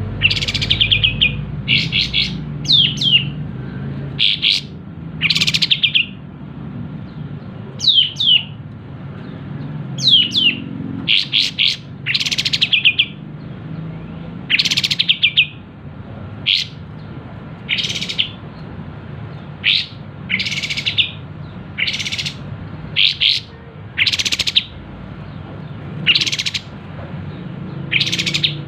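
Sooty-headed bulbul singing: short, bright chirping phrases repeated every second or two.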